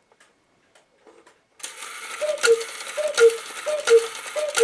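Antique cuckoo clock's strike train releasing from warning about a second and a half in: the train whirs while the bellows give the two-note cuckoo call four times, each with a gong stroke, about 0.7 s apart. On the half hour it runs on and does not shut off after one call as it should, a fault the repairer is adjusting.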